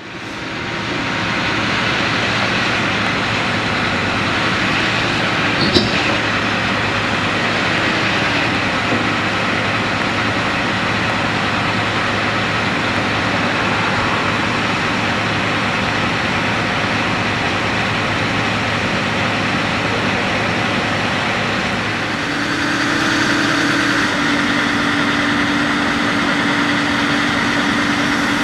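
Diesel engine of a Hitachi Zaxis 350 crawler excavator running steadily as its hydraulic demolition boom is raised, with a single sharp clank about six seconds in. A little past two-thirds of the way through, the sound changes and a steady hum comes in over the engine.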